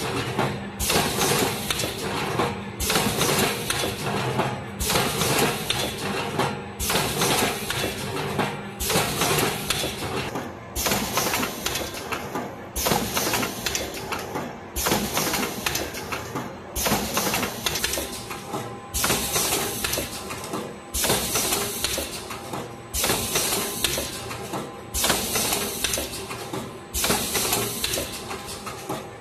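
Automatic rotary coffee-capsule filling and sealing machine running, working through a steady cycle that repeats about every two seconds as the turntable indexes and the filling and sealing heads work.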